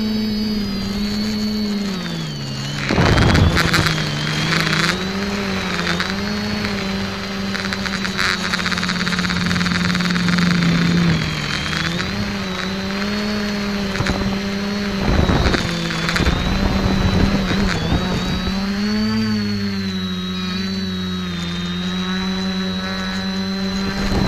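X550 quadcopter's electric motors and propellers whining as heard from its onboard camera, the pitch rising and falling as the throttle changes. Short bursts of rushing noise break in about three seconds in and again around fifteen seconds.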